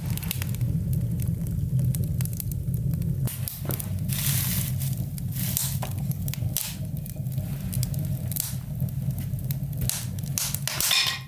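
Fire burning in a freshly lit wood stove, with irregular crackles from the kindling over a steady low rumble of the stove drawing hard.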